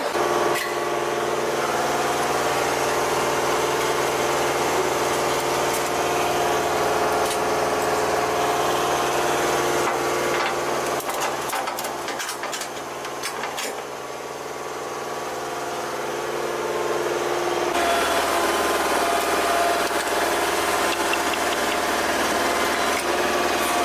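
An engine running at a steady idle, with a few metallic clicks and clanks around the middle. Its tone shifts slightly about three quarters of the way through.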